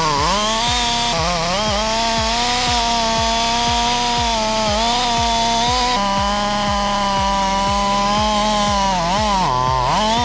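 Chainsaw running at high revs as it cuts through a maple root ball, its engine note dipping briefly under load near the start and again near the end, then picking back up.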